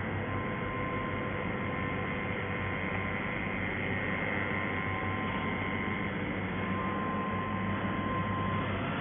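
CNC router machine running, a steady hum and hiss with a faint high steady tone that stops near the end.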